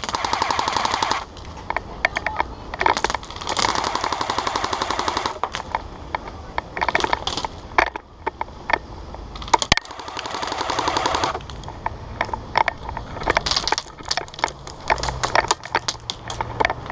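Airsoft guns firing in rapid, full-auto bursts: three long bursts of one to two seconds each, with scattered single shots cracking in between.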